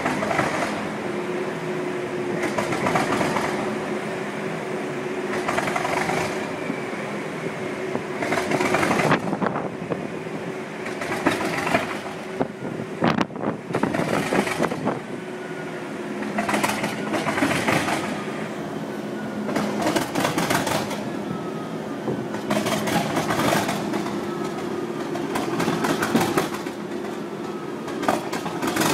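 Class 37 diesel-electric locomotive's engine running just after a cold start, putting out heavy exhaust smoke, with a steady low hum and loud surges in the engine sound every two to three seconds.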